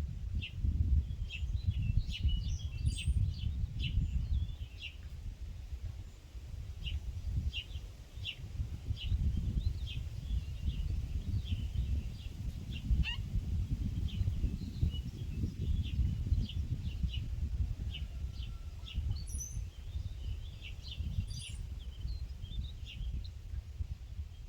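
Small birds giving many short, high chirps, with one downward-sliding call about halfway through, over a steady low rumble.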